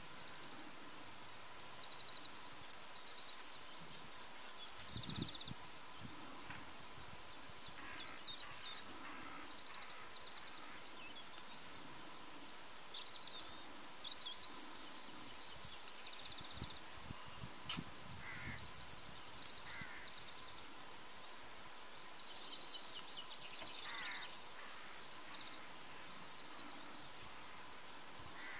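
Small songbirds singing and calling throughout, in short high chirps and rapid trills that come every second or two, over a steady outdoor hiss.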